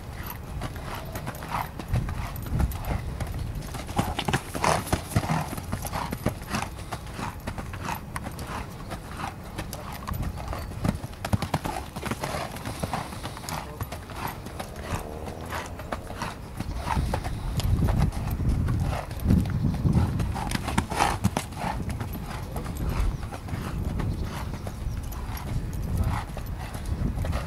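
Hoofbeats of a horse cantering and trotting on the lunge in a sand arena, a steady run of soft footfalls.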